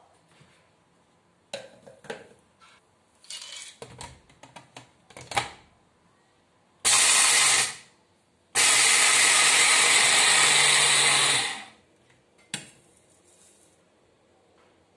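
Small electric blender grinding peanuts at low speed: a short run of about a second, then a longer run of about three seconds, each cutting off sharply. Before it, clatter and knocks as the jar is fitted to the base; one knock after.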